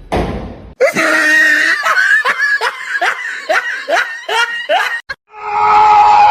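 A person laughing in a rapid run of short bursts, about two a second. About five seconds in, a loud, long, high cry follows.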